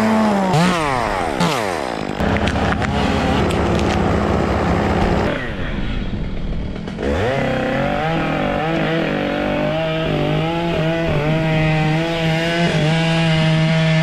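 Chainsaw revved up and down several times, dropping to a steady idle, then held at full throttle with a slightly wavering pitch for the second half.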